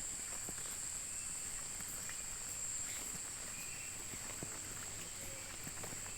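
Forest insect chorus: a steady high-pitched drone, with a few faint ticks over it.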